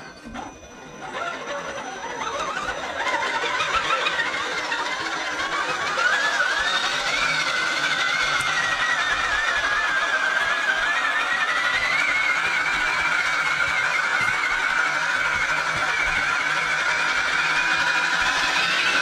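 Whine of the electric drive in scale RC crawler trucks, Castle Creations 1406 sensored brushless motors and geartrains, as they drive through wet sand. It starts faint, climbs in pitch and loudness over the first few seconds, then holds a steady, slightly wavering whine that shifts with the throttle.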